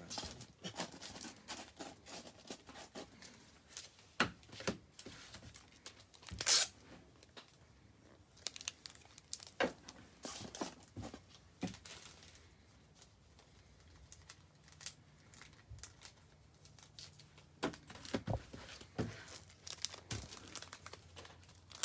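Handling noise: scattered rustling and crinkling with sharp taps and clicks, the loudest crackle about six and a half seconds in, and a quieter stretch past the middle.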